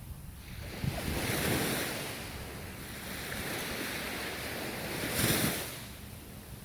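Ocean waves breaking on the shore: one swells up about a second in and a louder surge crests a little after five seconds before washing back. A low wind rumble on the microphone runs underneath.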